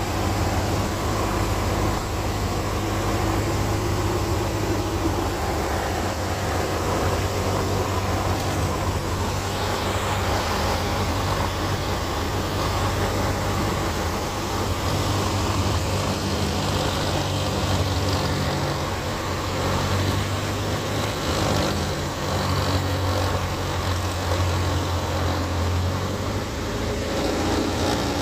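Van's RV-4 light aircraft's piston engine and propeller droning steadily, heard inside the cockpit with airflow noise, on approach to land.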